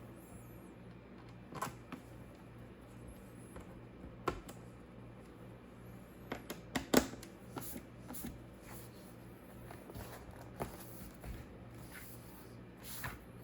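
Irregular light clicks and taps, with a quick cluster of louder ones around seven seconds in, over a faint steady low hum.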